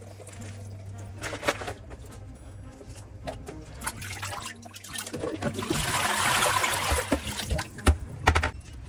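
Water splashing in a plastic basin as mallow leaves are rinsed by hand, then the basin's water poured out into a stainless steel sink with a rush lasting about two seconds just past the middle. Two sharp knocks come near the end.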